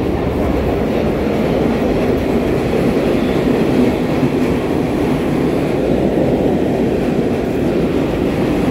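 New York City subway train running in the station: a loud, steady rumble with no pauses.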